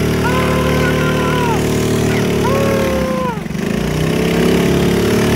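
Small engines of bumper boats running steadily, dipping in pitch and coming back up about three and a half seconds in. Two drawn-out cries are heard over them.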